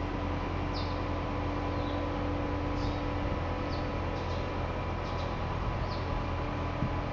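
Steady low drone of a mobile crane's engine, with a faint steady whine over it. Short, high, falling chirps of a small bird come about once a second.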